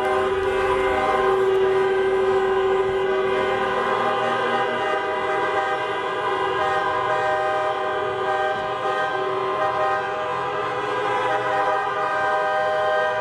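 Many car horns sounding together at once, a sustained chord of many overlapping steady pitches that holds without a break.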